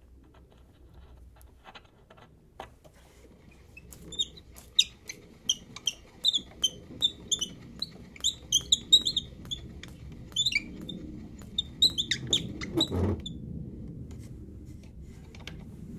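Portable wind-up gramophone being wound by its crank: a run of short, squeaky clicks from the spring motor's winding gear, about three a second for some nine seconds. It ends in a louder knock about thirteen seconds in, followed by a low steady hum as the turntable turns.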